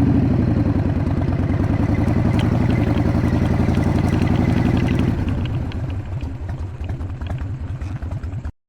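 Harley-Davidson Evolution air-cooled 1340 cc V-twin engine running with its rapid, even exhaust pulses, louder for the first five seconds and then easing off. The sound cuts off abruptly near the end.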